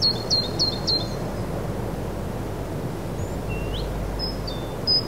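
A small bird calling over a steady background hiss. It gives four quick high chirps in the first second, a single rising note a little past the middle, then two more chirps near the end.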